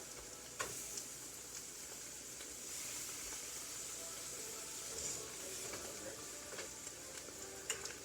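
Eggs sizzling steadily as they fry in a pan, with a few short sharp clicks about half a second in, about a second in, and near the end.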